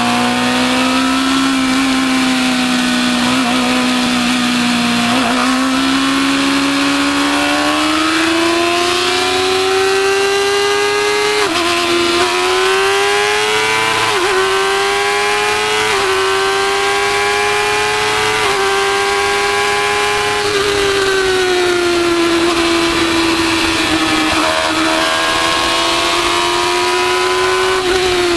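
Formula 1000 race car's 1000 cc motorcycle engine at high revs, heard from the car itself. Its pitch climbs and drops abruptly at each gear change, sags about two-thirds of the way through as the car slows, then climbs again, over a steady rush of wind.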